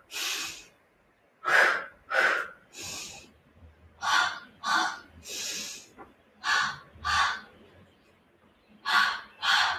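A woman breathing hard through the mouth in a set rhythm: two short, sharp exhales, one per leg switch, then a longer, softer breath, repeated four times about every two and a half seconds. This is the paced breathing of a Pilates scissor (hamstring pull) exercise.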